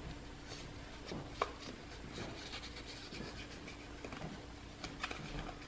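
Faint rustling and rubbing of a paper circle being folded in half and creased between the fingers, with one small sharp tick about one and a half seconds in.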